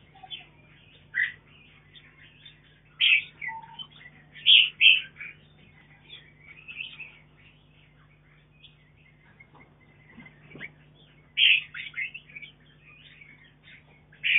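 Red-whiskered bulbuls giving short chirping calls at irregular intervals, some loud, over a steady low hum.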